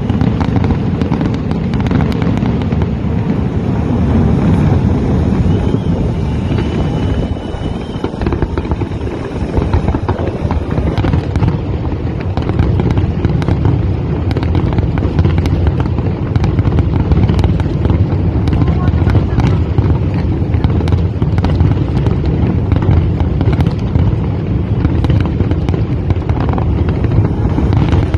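New Year's Eve fireworks going off without a break: a dense rumble of booms with many sharp bangs and crackles scattered throughout, and people's voices among them.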